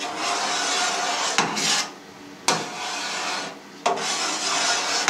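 A long knife drawn through set cheese curd, its blade scraping along the stainless steel vat, in three long strokes that each start and stop abruptly. This is the curd being cut into columns, and it is very firm.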